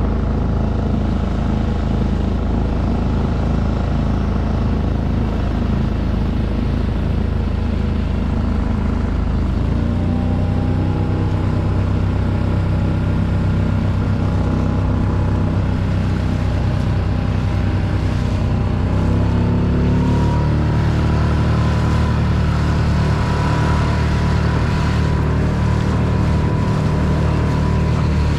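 Small outboard motor of a one-person Solo skiff running steadily under way. Its pitch shifts about ten seconds in and rises a little a few seconds past halfway.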